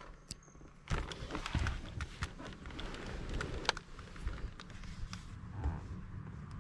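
Irregular clicks and soft knocks from a laptop being gripped and handled, over low rustling handling noise, starting about a second in.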